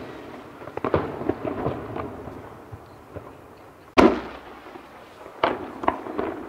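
Aerial firework shells bursting. The loudest is a single sharp boom about four seconds in, trailing off. A cluster of smaller crackling pops comes about a second in, and two more sharp reports come near the end.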